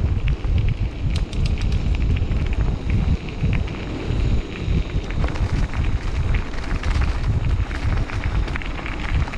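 Wind buffeting the microphone with a steady rumble, over the clatter and rattle of a mountain bike rolling along a rough trail; sharp clicks come thickest about a second in.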